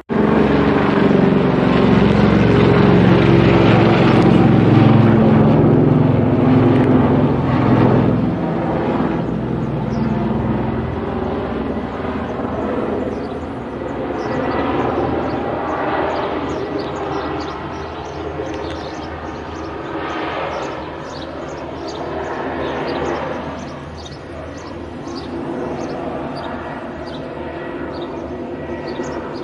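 Airbus H225M twin-turbine military helicopter flying overhead, its rotor and turbine noise loud from a sudden start, then slowly fading as it moves away, with a couple of brief swells.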